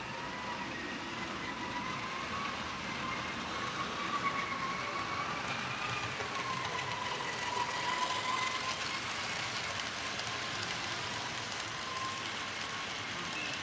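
Tyco HO scale Alco C-430 model locomotive's electric motor whining steadily, its pitch wavering slightly with speed, over the rattle of a long string of freight cars rolling on the track.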